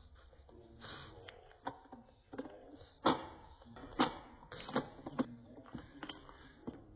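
Plastic dog treat puzzle clacking as a pug noses its pegs and sliding covers: a string of light knocks, about one a second, the sharpest about three and four seconds in.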